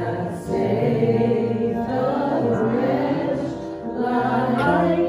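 Church worship music: a choir singing a gospel song with held, sustained notes.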